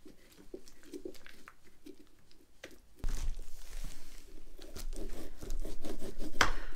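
Knife sawing through a pumpkin's shell and a metal spoon scraping out the stringy pulp: irregular crunching and scraping, louder from about three seconds in, with a sharp knock near the end.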